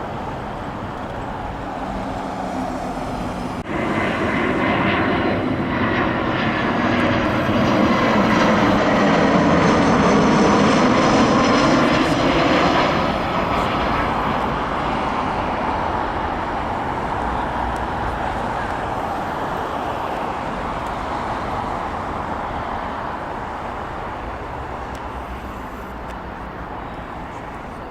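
Jet airliner engines passing close by: the engine noise jumps up about four seconds in, peaks a few seconds later with a falling whine as the aircraft goes past, then fades slowly away.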